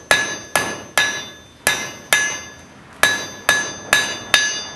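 Blacksmith's hand hammer striking hot iron stock on an anvil, each blow ringing clearly. There are about nine blows in two quick runs, with a short pause near the middle.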